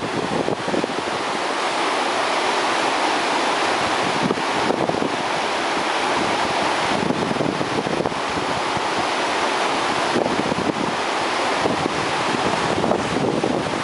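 Muddy floodwater of the swollen Gallikos river rushing and churning over a submerged crossing, a loud steady rush of water, with wind gusting on the microphone.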